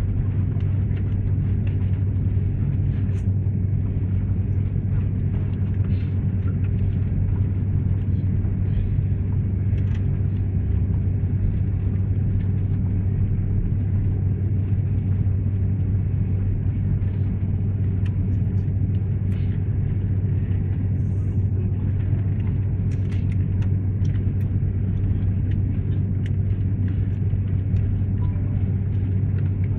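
Airliner cabin noise while taxiing after landing: a steady low drone from the engines at idle with the rush of the cabin air, unchanging throughout, with a few faint ticks.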